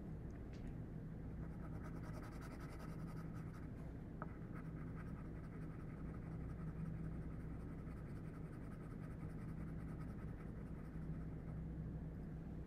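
Graphite drawing pencil shading on paper: faint repeated scratchy strokes as the side of a drawn cylinder is filled in with tone.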